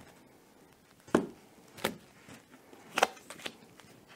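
Divination cards being dealt one by one onto a cloth-covered table: three or four short taps, roughly a second apart, as each card is laid down.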